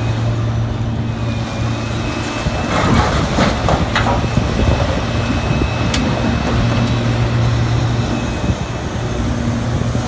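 Heavy diesel machinery of a mining excavator loading dump trucks, running with a steady low hum. A spell of rattling and knocks comes about three to five seconds in, and a single sharp click follows a second later.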